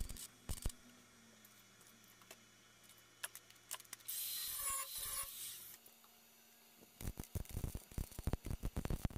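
Wire-feed welder tack-welding a patch into a rust hole in a sheet-steel body panel: a short crackling burst at the very start, then a fast run of crackling welds in the last two or three seconds. A steady hiss lasts about two seconds in the middle.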